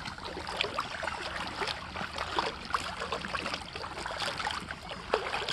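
Shallow water trickling and splashing, a steady hiss broken by many small irregular clicks and splashes.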